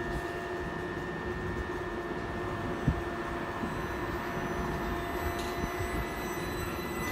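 Southeastern Class 395 high-speed electric train standing at the platform, its onboard equipment giving a steady electric hum with several held tones. A single knock comes about three seconds in.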